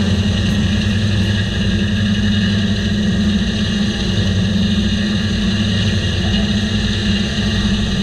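Diesel engine of a circle sawmill running steadily under load, driving the large circular saw blade as the carriage feeds a hemlock log into it.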